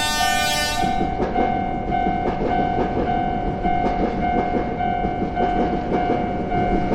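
Japanese railroad crossing warning bell ringing in steady strokes about twice a second while a train passes. A short train horn blast sounds right at the start, then the train's rumble and wheel clatter run under the bell.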